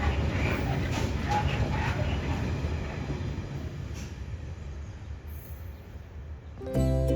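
Loaded stone freight train rolling past and receding, a low rumble that slowly dies away. Plucked-string music comes in near the end.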